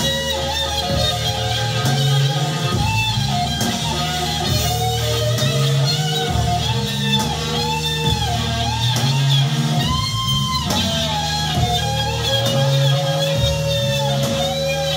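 Music with electric guitar leading, bass notes underneath in a repeating pattern, and a melody that bends up and down in pitch.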